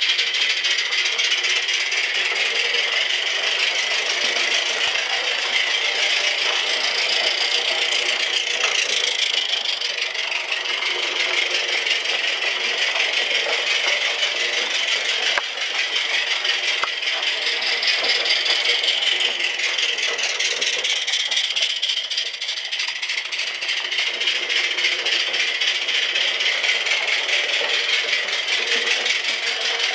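Mamod gas-fired live-steam saddle tank locomotive running round its track with its wagons: a fast, steady rattling clatter, dipping briefly a couple of times.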